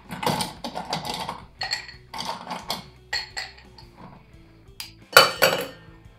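Ice cubes clinking and clattering as they are picked out of a metal bowl into a glass by hand, with a louder rattle of ice about five seconds in. Faint background music runs underneath.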